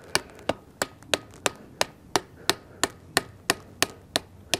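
Soft-faced hammer lightly tapping a new wheel seal into a semi truck wheel hub, even sharp taps about three a second. The taps are worked around the seal's rim to drive it in evenly without damaging the two-piece seal.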